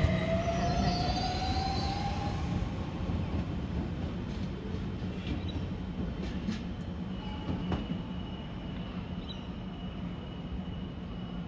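Sydney Trains double-deck electric train pulling out, its traction motors giving a rising whine over the first two seconds, over a steady low hum and rumble that fade as it draws away. In the second half, a faint thin wheel squeal from a train approaching in the distance.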